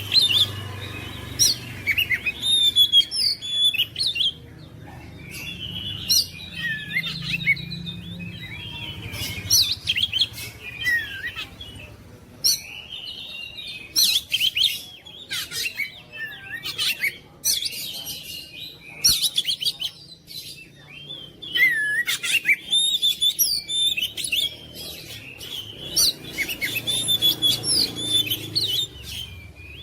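Oriental magpie-robin (kacer) singing a long, varied song of sharp whistles, chirps and trills, with a few brief pauses.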